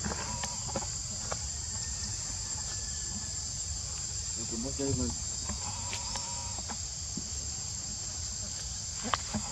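Insects droning steadily in a high continuous buzz. A short voice-like call sounds about four and a half seconds in, and a sharp click comes near the end.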